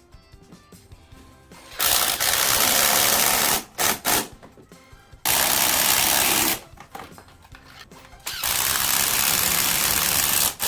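Hammer drill run in three bursts of a few seconds each, with two short blips between, over background music.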